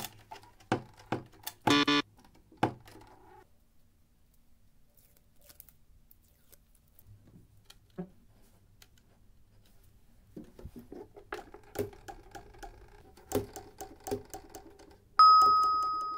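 Light clicks and plastic knocks from a door and a bottle-cap door stopper being handled. Near the end comes a sudden, loud bell-like ding that fades out over about a second and a half.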